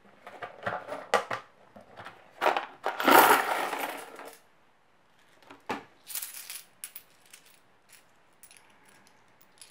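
Loose coins clattering inside a plastic snap-lid box as it is opened and tipped, with sharp plastic clicks from the lid. The loudest clatter comes about three seconds in.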